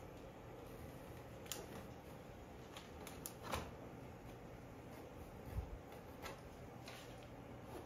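Pencil sketching on a stretched canvas: a scattering of faint, irregular light ticks and scratches over steady room hiss, with one soft low bump about two-thirds through.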